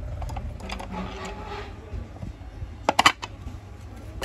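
Plastic housing of a sewing machine handled and pulled apart during disassembly: a rustling scrape, then a quick cluster of sharp plastic clicks about three seconds in.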